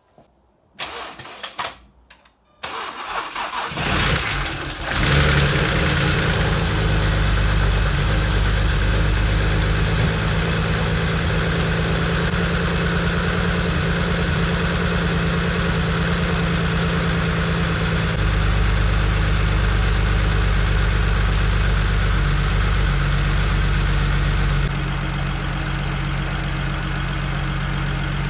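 BMW N54 inline-six, converted to a single turbo, cranked by the starter and catching about four seconds in, then settling into a steady idle, a little quieter near the end. This is the first start after refitting the water pump, power steering pump and serpentine belt, run to check for leaks.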